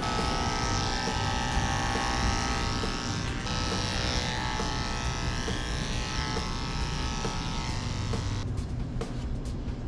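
Cordless electric dog clippers running steadily as they cut through a Giant Schnauzer's wiry coat, stopping about eight and a half seconds in. A few short scratchy brush strokes through the coat follow.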